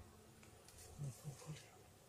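Faint rustling and handling of cloth and hive parts, with three short low sounds close together about a second in.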